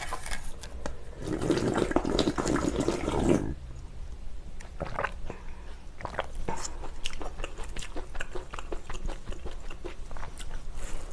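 A person slurping noodles from a bowl of spicy beef soup for about three and a half seconds, then chewing with wet mouth smacks.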